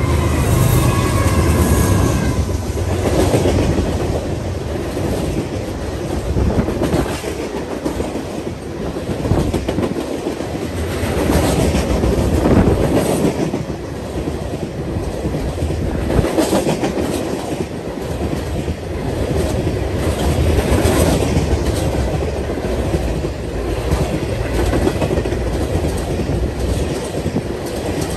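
Freight train rolling past close by: the locomotives go by at the start, then a long string of loaded open-top hopper cars, wheels clacking over the rail joints amid a steady rumble that swells and eases every few seconds.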